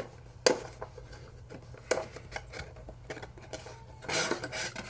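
Rigid cardboard headphone packaging being handled and opened: sharp clicks and taps, the loudest two in the first two seconds, then a burst of rustling and scraping near the end.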